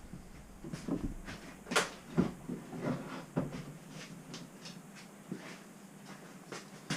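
Scattered light knocks and clicks as small mild-steel parts are handled and tried for fit in a milling vice. The sharpest knocks come about two seconds in and just before the end.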